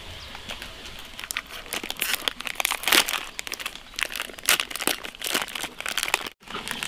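A foil-lined plastic packet being torn open and crinkled by hand: irregular crackling and rustling that grows louder about two seconds in.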